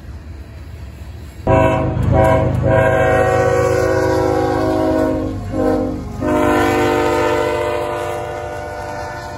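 Diesel locomotive air horn blowing over the rumble of a passing train: it starts suddenly about a second and a half in, breaks briefly twice past the middle, and its last long blast fades toward the end.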